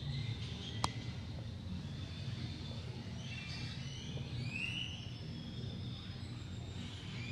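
Zoo ambience: a steady low hum with scattered bird chirps and short whistles, and one sharp click about a second in.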